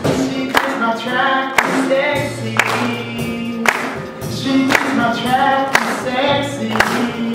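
A man singing a country song into a microphone over a backing track, with a drum hitting about once a second.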